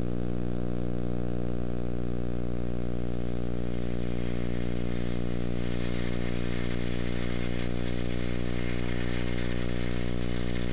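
A steady, unchanging electrical buzz with many overtones under a layer of tape hiss, played back from a VHS tape. The hiss grows stronger about three seconds in.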